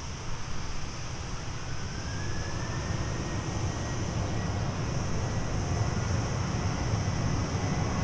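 Airbus A321 jet engines running, a low rumble that grows steadily louder, with a faint whine that rises in pitch over the first few seconds and then holds steady.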